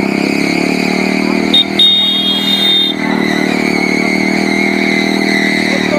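Bajaj Pulsar NS125's single-cylinder engine running loud through an aftermarket SC Project exhaust, held at a steady engine speed without revving.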